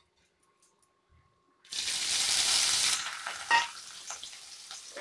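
Soaked dried prawns hitting hot oil in an aluminium kadai. After a second and a half of near silence, a loud sizzle starts suddenly, then settles to a quieter, steady frying hiss, with a brief clink about three and a half seconds in.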